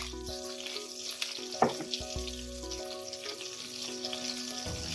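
Chicken and rabbit pieces frying gently in oil in a pan, with a steady soft sizzle and a single light knock about one and a half seconds in.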